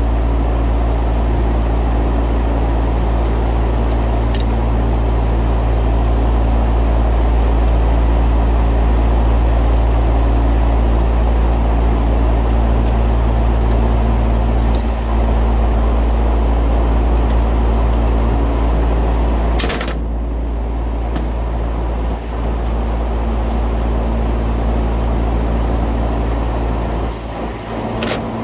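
Steady, loud drone of running refrigeration machinery, a deep hum with several steady buzzing tones. A few sharp metallic clicks of a wrench on the fittings sound over it; about two-thirds through, a knock, after which the drone is a little quieter.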